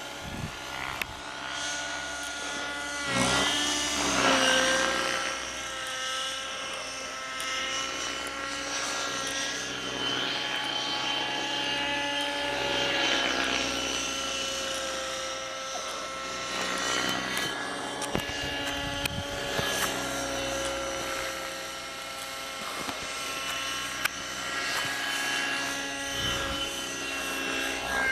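Motor of a radio-controlled model aircraft in flight: a steady, high whine overhead. Its pitch dips briefly and recovers as the throttle changes, about three to five seconds in and again at the very end.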